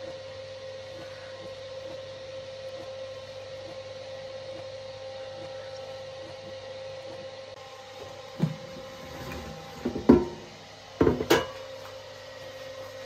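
Steady electrical hum with one fixed tone. In the last few seconds a handful of sharp knocks and clatters sound as kitchenware is handled: metal tongs, the bowl and the air fryer basket.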